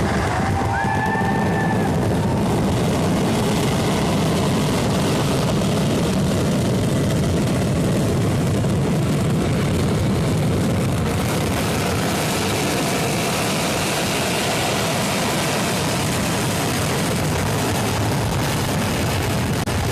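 Fireworks barrage going off in rapid, unbroken succession, merging into a continuous deep rumble.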